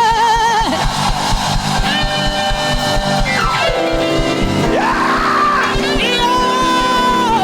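Upbeat church band music: a steady low drum beat under long held chords that change a few times. In the first moment a voice holds a wavering note.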